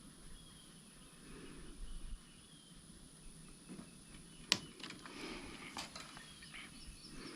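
Faint bird chirps, repeated short falling notes about once a second, with two sharp clicks about halfway through.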